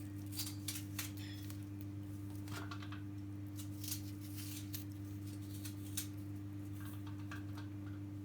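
Scattered light clicks and taps of food being handled and laid in place, over a steady low electrical hum.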